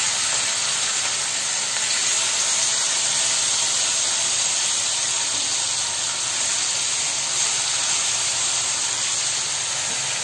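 Masala-coated small chelwa fish sizzling steadily in hot mustard oil on a flat tawa as they are spread onto it.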